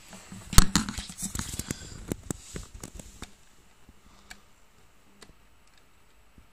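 Close handling noise: one sharp knock about half a second in, then a quick run of small hard clicks and rattles lasting a couple of seconds, dying away to a few faint ticks.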